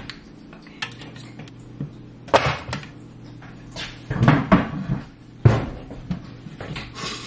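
Scattered knocks and clatters of kitchen things being handled: a spatula set down by the frying pan, then a wooden chair and a bowl moved, with a sharp knock about five and a half seconds in. A low steady hum runs underneath.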